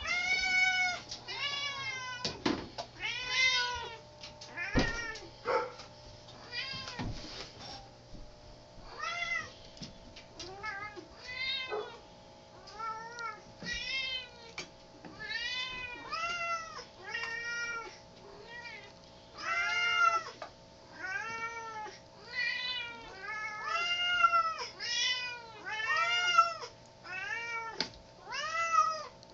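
Several house cats meowing for their dinner, call after call, often overlapping, each meow rising then falling in pitch. A few sharp knocks in the first several seconds.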